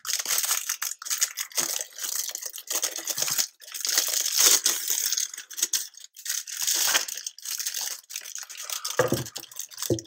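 Thin clear plastic packaging being pulled off and handled, crinkling and rustling in uneven bursts with small crackles.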